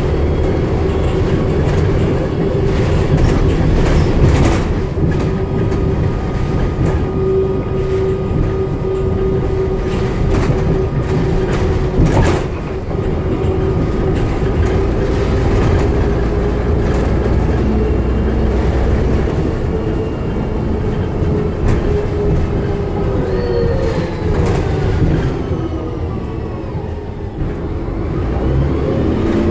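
DAF DB250LF double-decker bus heard from the lower saloon while moving: a steady driveline whine over engine and road rumble, with body rattles and a couple of sharp knocks. Late on the whine falls away and the noise drops as the bus slows, then a new whine picks up near the end as it pulls on again.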